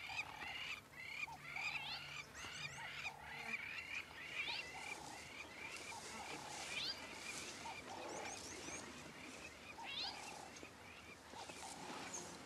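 Faint bush ambience of wild animal calls: a chorus of short chirps and quick rising whistles, over a short, lower call repeated about once a second.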